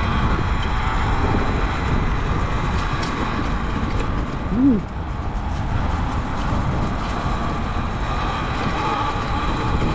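Talaria Sting R electric dirt bike being ridden on its new PivotRax Kilowatt Climber rear tire: a steady whine from the motor and drivetrain over a continuous rumble of tire and wind noise.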